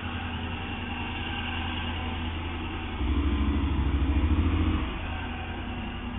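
A motor vehicle's engine hum, low and steady, which grows louder with a fast pulsing for about two seconds from three seconds in.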